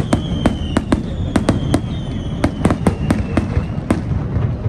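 Fireworks display: a rapid string of sharp bangs, several a second, with a high whistle slowly falling in pitch through the first few seconds.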